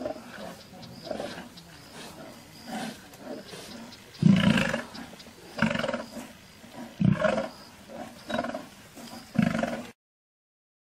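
Male lions snarling and growling at each other in a fight: fainter growls at first, then five loud calls about a second and a half apart from about four seconds in. The sound cuts off suddenly near the end.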